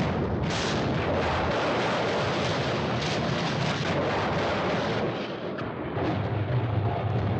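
Cartoon sound effect of a huge boulder rolling and crashing over the ground: a continuous rumbling crash with many sharp knocks mixed in, easing briefly about five and a half seconds in.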